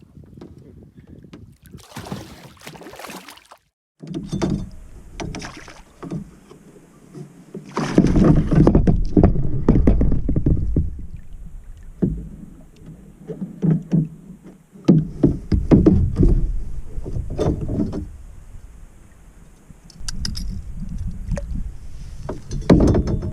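Sounds of a fishing kayak on the water: irregular splashing and sloshing with scattered knocks, and stretches of loud low rumble.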